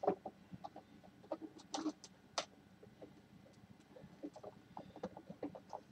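Scattered light clicks and knocks of plastic parts on a Hoover SteamVac Deluxe carpet cleaner being handled as the tank lid is worked into place, the two loudest about two seconds in.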